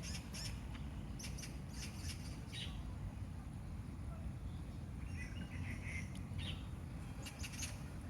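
Wind buffeting the microphone as a steady low rumble, with short bird chirps scattered over it and a quick run of chirps around the middle.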